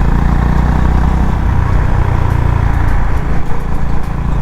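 Honda CB350RS's single-cylinder engine and exhaust running steadily under way.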